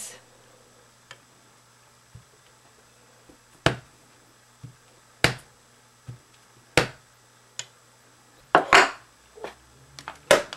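Rubber stamp tapped on an ink pad and pressed onto card: a string of sharp, separate taps a second or two apart, with a louder double tap about three-quarters of the way through.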